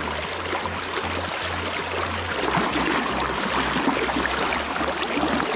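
River current rushing and splashing steadily around a wader's legs.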